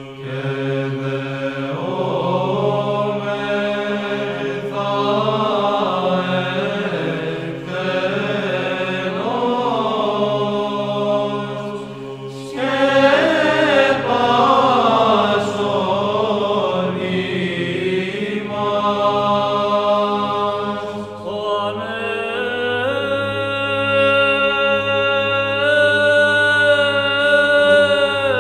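Byzantine chant: a sung melody over a steady held drone (ison), growing louder about halfway through.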